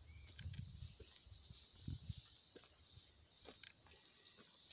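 Insect chorus: a steady, high-pitched drone that does not let up.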